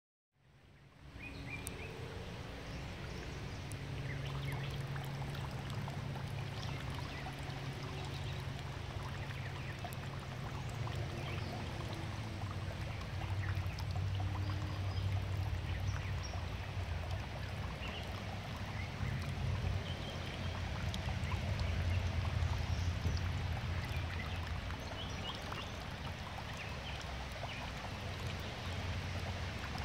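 Water pouring steadily from an inflow pipe into a small garden pond, a continuous trickling splash over a low hum.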